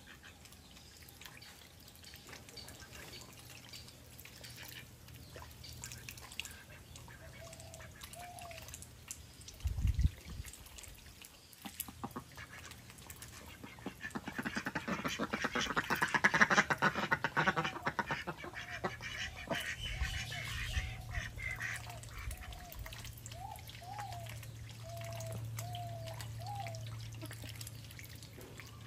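Domestic mallard-type ducks dabbling in a duckweed-covered water tank. A dense run of wet crackling from their bills sifting the water is loudest about halfway through. A series of short, soft quacks is repeated through the second half, with a single low thump about a third of the way in.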